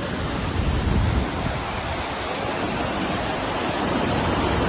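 Large waterfall crashing down, a steady loud rush of water, with wind buffeting the microphone in the low end.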